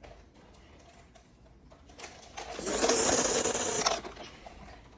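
Small electric motor of a battery-powered toy train whirring, growing louder about two seconds in, running loudly for about a second, then cutting off suddenly.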